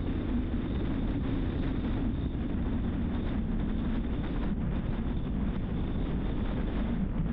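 Steady low rumble of a car driving along an asphalt road: tyre and road noise with wind.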